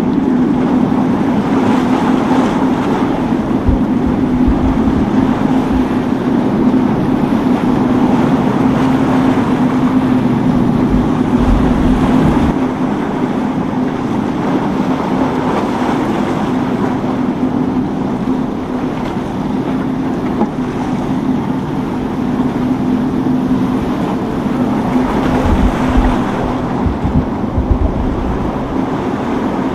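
Motorboat engines running with a steady drone, with wind gusting on the microphone now and then.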